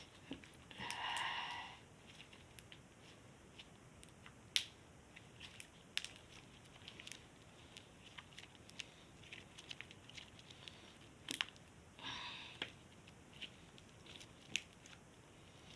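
Crunchy slime with foam bits being squeezed and kneaded in the hand, giving scattered sharp crackles and pops. Two short pitched sounds rise over it, about a second in and again about twelve seconds in.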